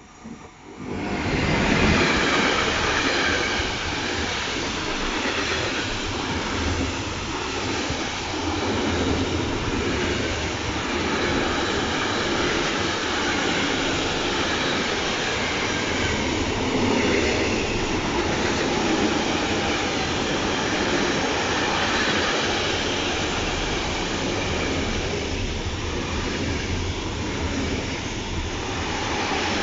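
Container freight train hauled by an electric locomotive passing close by on the near track; its noise comes in suddenly about a second in, then the wagons run past loudly and steadily.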